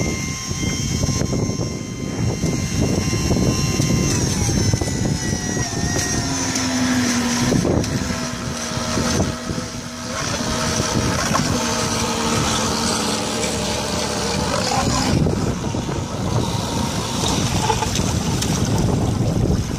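Crab boat's engine running, with wind buffeting the microphone; the engine note drops about four to six seconds in as it throttles back and then holds lower.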